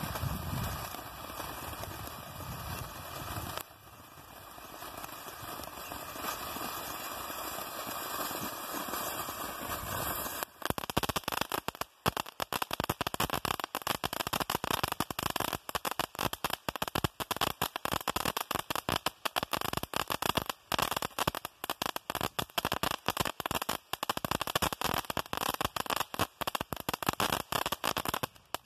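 TNT "Happy Trolls" consumer fireworks battery firing. For about the first ten seconds its sparks give a steady hiss. After that comes a dense, rapid crackle of many small pops, which cuts off suddenly at the very end.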